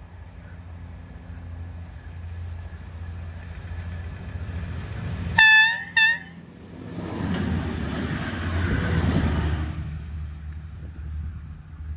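VT98 diesel railbus approaching, its engine drone growing louder; about five and a half seconds in it sounds its horn twice, a longer blast then a short one. It then passes close by with a rush of engine and wheel noise that dies away near the end.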